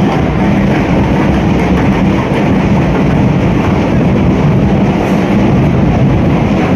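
Loud, steady din of a large, dense crowd, a rumbling wash of many voices and movement without distinct words.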